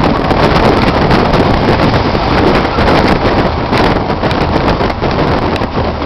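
Wind buffeting the microphone at an open window of a moving car, over steady road and engine noise.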